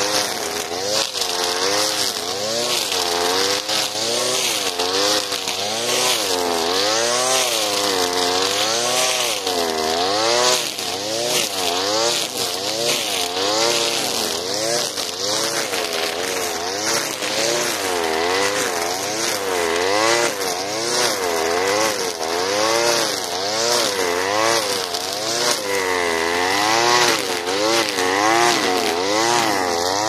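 Alpina Star 55DP two-stroke petrol brushcutter running at working speed, its 3 mm square nylon line cutting tall grass and weeds. The engine note rises and falls about once a second as the head is swept to and fro through the grass.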